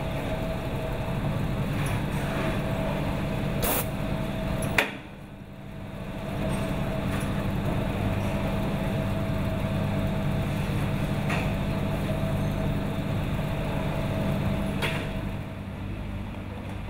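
Industrial laundry machinery running with a steady hum and a faint high whine, with a few sharp clicks. The sound drops away sharply about five seconds in, just after the loudest click, and returns a second or so later.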